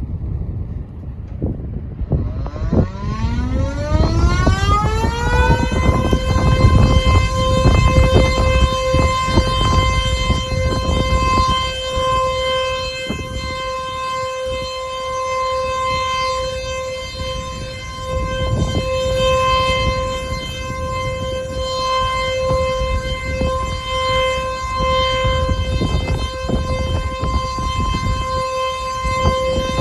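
Tenryu River dam-release warning siren, warning that water is being let out of the dam upstream. It starts about two seconds in, rises in pitch for about three seconds, then holds one steady note.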